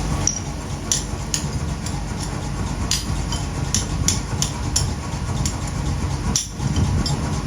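Workshop machinery rumbling steadily, with irregular sharp metallic clinks and taps from metal being worked, about a dozen of them.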